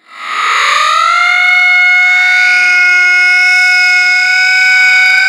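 Siren winding up in pitch over about the first second, then holding one loud, steady tone.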